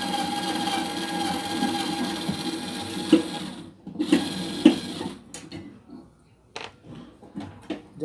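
Black & Decker power screwdriver running with a steady motor whine as it backs out a microwave oven's magnetron mounting screw. It stops about three and a half seconds in, runs again for about a second, and then a few light clicks follow.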